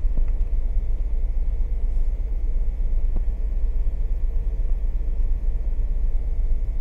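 Ford Explorer engine idling, heard from inside the cabin as a steady low rumble.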